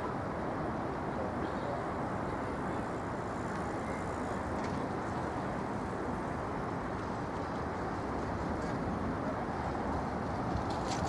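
Steady city traffic noise: a continuous hum of road vehicles with no single event standing out.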